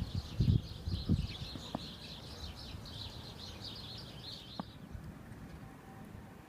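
A group of small birds chirping busily, many calls overlapping, stopping abruptly about four and a half seconds in. There are a few low thumps near the start.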